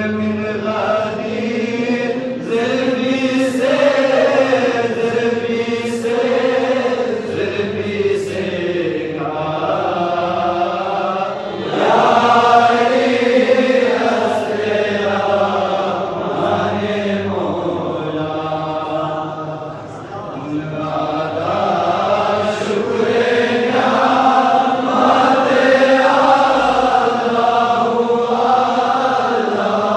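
Devotional chanting by male voices, sung in long, slowly wavering melodic phrases.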